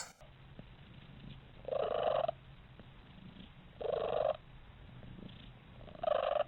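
Domestic cat purring steadily, breaking into three short loud calls about two seconds apart: the odd vocalization the cat is known for.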